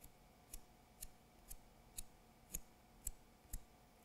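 A pencil being sharpened by hand in a small pencil sharpener: short, crisp scraping clicks, about two a second, the loudest ones in the second half.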